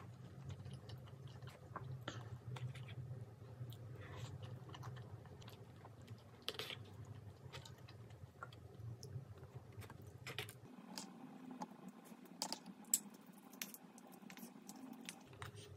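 Close-up eating sounds of mala tteokbokki with glass noodles: soft wet chewing with many small, scattered clicks and smacks.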